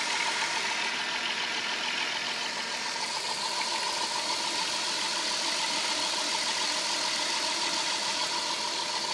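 Chrysler Voyager's 3.3-litre V6 idling steadily while still cold, with hydrogen-oxygen gas from an electrolysis cell fed into its air intake alongside the petrol, heard close up in the engine bay.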